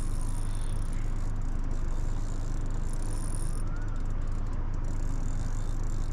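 Strong wind on the microphone: a steady, even low rumble.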